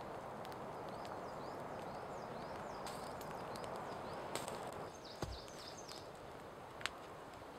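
A steady hiss with faint high chirps repeating every half second or so, then a low knock about five seconds in as a log is set down by a campfire, and one sharp crackle near the end.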